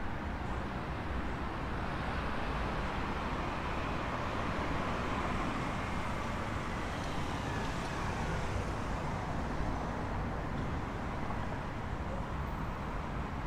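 Road traffic: steady tyre and engine noise of passing cars, with one vehicle swelling louder as it goes by about a third of the way in.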